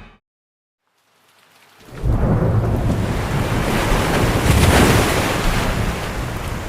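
Staged thunderstorm effect: a loud rumble of thunder over a rushing roar of falling water and rain, swelling in after a moment of silence about a second in and staying loud.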